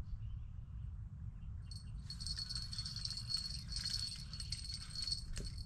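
Wind rumbling on the microphone throughout. From about two seconds in, a high, rapid rattling chatter joins it, with a brief break near the end.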